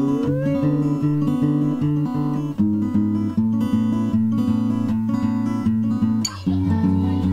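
Acoustic guitar music: repeated plucked notes over held chords, changing chord about two and a half seconds in and again near the end.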